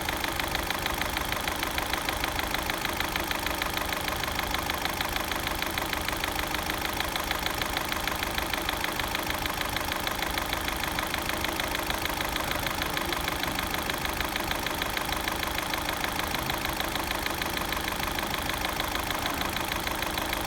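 Engine idling with a steady, rapid, even knock, which the owner takes for a knocking gear.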